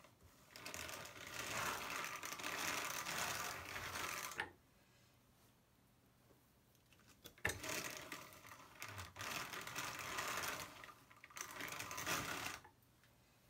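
Hand-cranked drum carder turning as it cards wool, its wire-toothed drums running through the fibre. Two bouts of cranking of about four and five seconds, with a short pause between.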